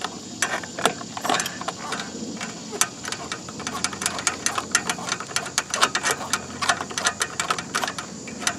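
Hand socket ratchet on a long extension clicking in short, irregular runs as it backs out a small bolt.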